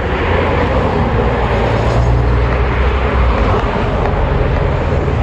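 Steady rumble of a vehicle on the move, road and wind noise loud and unbroken.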